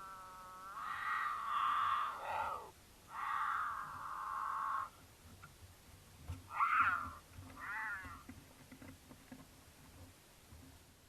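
Mountain lion caterwauling, the loud yowling courtship call of a cat in heat. One long drawn-out yowl drops in pitch near its end and is followed by a second yowl, then two shorter, wavering calls.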